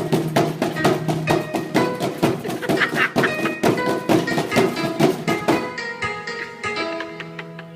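Music with a fast run of drum and wood-block strikes over pitched notes. About six seconds in, the drumming stops and held melodic notes carry on.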